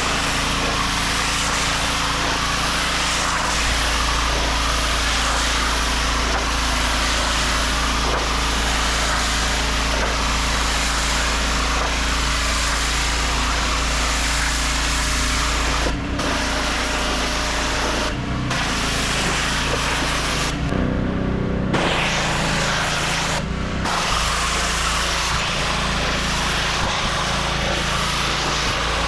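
Pressure washer running steadily, its high-pressure spray hissing against a vinyl fence panel over a low engine hum. The spray cuts out briefly a few times, longest about twenty seconds in, while the engine keeps running.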